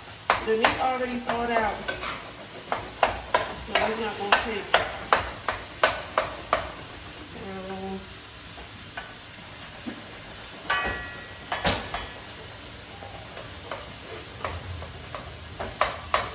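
Spatula scraping and tapping in quick runs against a nonstick frying pan as ground meat is stirred and browned, over a steady sizzle. The scraping pauses for a few seconds midway, leaving just the sizzle.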